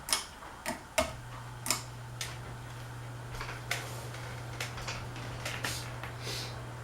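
Fanimation Belleaire ceiling fan switched to its high speed: a run of sharp clicks in the first two seconds, then the motor's steady low hum comes in about a second in, with a few fainter ticks over it.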